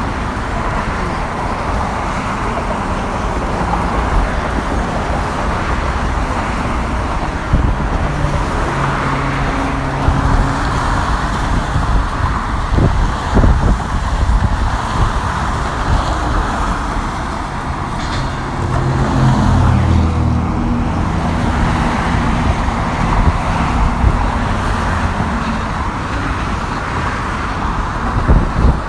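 Steady road traffic on the Golden Gate Bridge roadway beside the walkway, a continuous rumble of passing vehicles with engine hum swelling louder twice as vehicles go by, and a few short knocks.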